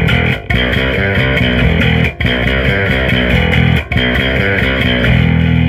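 Custom electric bass played with overdrive, humbucker and Precision pickups both on: a fast riff of short notes with three brief breaks, then a long held note near the end.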